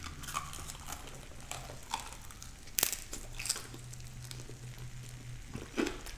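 Close-up eating sounds: chewing and crunching on hard-fried chicken wings, with irregular small crunches and clicks and one sharper crack a little under three seconds in.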